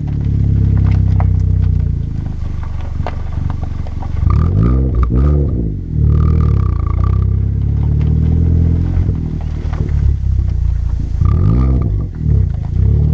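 2015 Chevy Sonic RS's 1.4-litre turbocharged four-cylinder running through a ZZP turboback exhaust, a steady low drone with several quick revs that rise and fall in pitch about halfway through and again near the end.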